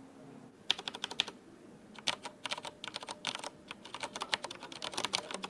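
Typing on an Akko 3108v2 mechanical keyboard: a short flurry of keystrokes about a second in, then fast continuous typing from about two seconds on.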